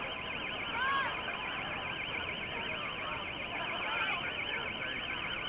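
An electronic alarm warbling steadily and rapidly between two high pitches, about nine times a second, over the chatter of a crowd.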